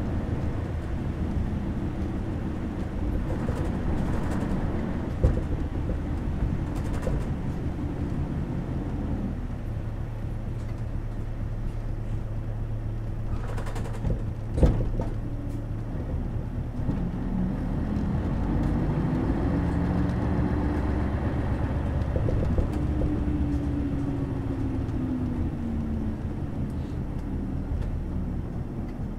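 Diesel city bus (Seibu Bus A3-947, a non-step bus) heard from inside the cabin while under way: a steady engine drone that settles to an even tone, then climbs in pitch as the bus accelerates and falls away again. Two sharp knocks are heard, about five seconds in and in the middle.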